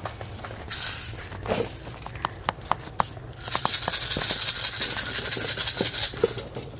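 Handling noise from the camera rubbing against clothing: a few sharp clicks, then from about halfway a dense, fast rattling rustle.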